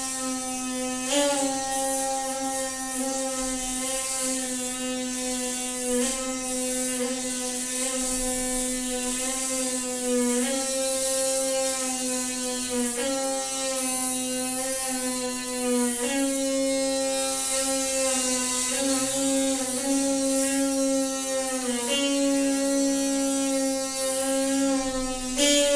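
Noisy water pipe singing: a steady buzzing drone on one low note with many overtones, its pitch shifting slightly every few seconds.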